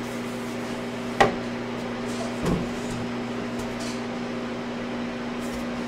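Harvest Right freeze dryer running with a steady hum while its chamber is precooled. A sharp clack about a second in as a metal tray goes onto a shelf, and a softer thump a second later.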